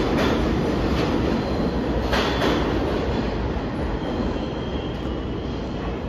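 New York City subway train running past, its wheels clacking over rail joints, the rumble easing off as the train pulls away. A faint high wheel squeal comes in about halfway through.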